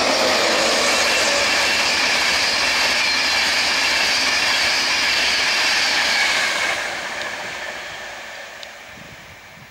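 Express passenger train passing at speed: a loud, steady rush of wheels on rail, which fades away from about six and a half seconds in as the train draws off.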